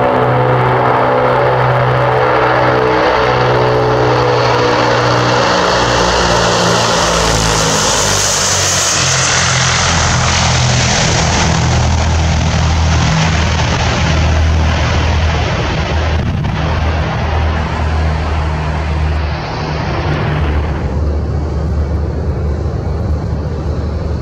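Antonov An-22 Antei's four Kuznetsov NK-12MA turboprops with contra-rotating propellers, landing: a loud propeller drone whose pitch falls as the aircraft passes. From about eight seconds in, as it touches down and rolls out on the runway, a broad rushing roar sits over a low steady drone, and the higher part fades after about twenty seconds.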